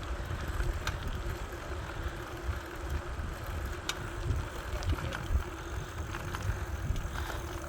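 Wind buffeting the microphone in an uneven low rumble, with a faint steady hum and a few light clicks.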